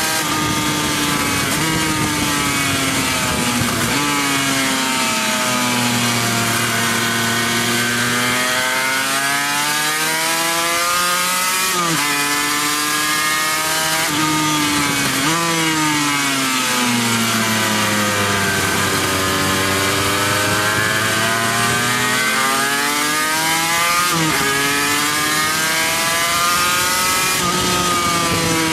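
Racing motorcycle engine heard from on board at full throttle, its pitch climbing and falling as it accelerates and brakes through corners, with abrupt jumps in pitch at gear changes several times. Wind rush over the fairing hisses beneath it.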